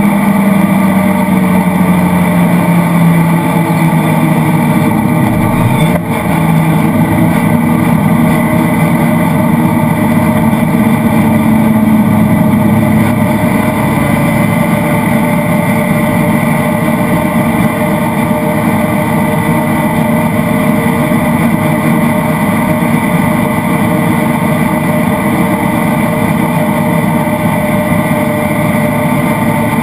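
Citroën Saxo VTS rally car's 1.6-litre 16-valve four-cylinder engine, heard from inside the cabin at stage pace. The engine note falls in pitch over the first few seconds and breaks briefly about six seconds in, then climbs again and keeps rising and falling with the throttle.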